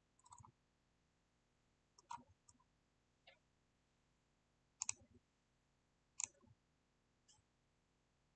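Faint clicks of a computer mouse button, about half a dozen scattered a second or two apart, some in quick pairs like double-clicks.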